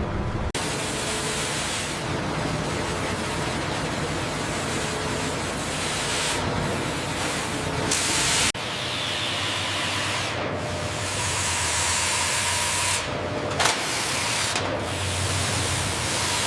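Sawmill machinery running with a steady, hissing noise. It changes abruptly twice, about half a second in and again about eight and a half seconds in, as if from cut to cut.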